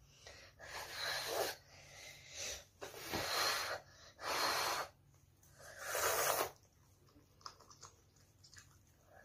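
A child slurping instant ramen noodles off chopsticks: five short, noisy sucking slurps in the first six and a half seconds, then only faint small clicks.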